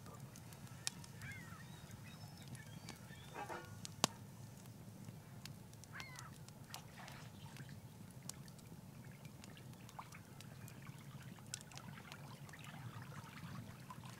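Faint campfire ambience: a wood fire crackling with scattered sharp pops, the loudest about four seconds in, under a grill where eggs fry in a small pan. Over a low steady rumble come a few short calls from distant waterfowl.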